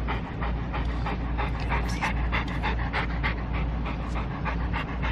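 Chocolate Labrador retriever panting quickly with an open mouth, about three to four breaths a second, over a steady low rumble.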